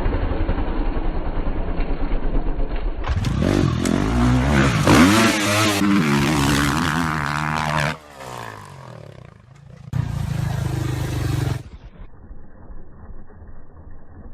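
Dirt bike engines revving across a run of short, abruptly cut clips, the engine pitch rising and falling with the throttle. There are quieter stretches about eight seconds in and again near the end.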